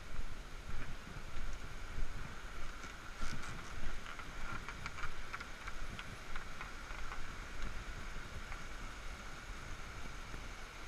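Rainforest ambience: a steady chorus of high chirps with bursts of quick chirping a few seconds in, over low wind rumble and buffeting on the microphone.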